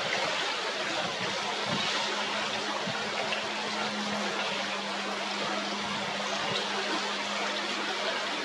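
Steady rush of flowing river water, with a steady low hum joining it about a second and a half in.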